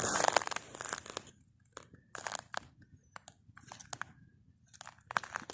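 Snow crunching with sharp crackles, densest in the first second, then thinning to scattered clicks.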